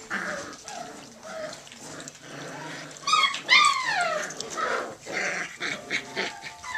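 Five-week-old Bergamasco puppies tussling and growling; about three seconds in, one lets out a short yelp and then a louder, drawn-out whine that falls in pitch.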